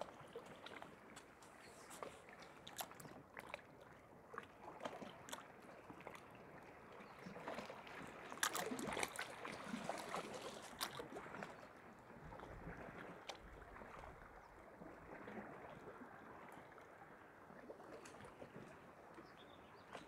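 Faint, steady wash of sea water with scattered small clicks, swelling for a few seconds a little before the middle.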